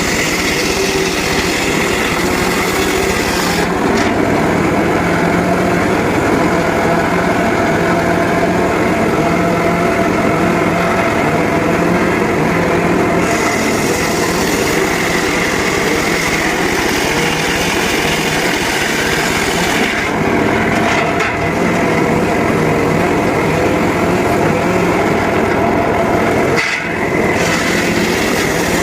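Homemade circular sawmill running steadily and sawing through teak wood, with a brief dip in level a couple of seconds before the end.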